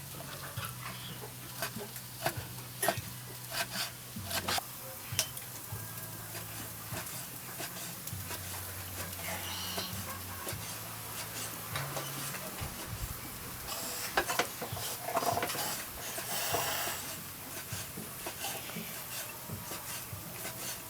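Food sizzling in a pan while it is stirred, with a utensil scraping and knocking against the pan many times.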